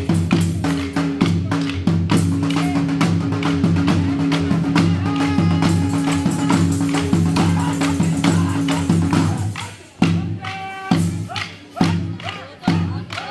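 Dhol drumming with dense strokes over a steady droning tone. From about ten seconds in the drumming thins to separate, spaced strikes.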